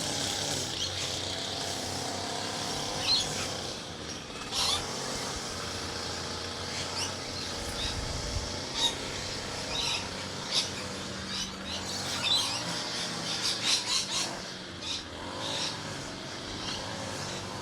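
Short high chirps, about a dozen scattered through, over a steady hiss and a low engine-like hum.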